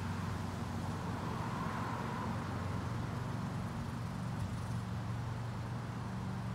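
Steady low machine hum with an even wash of outdoor noise behind it.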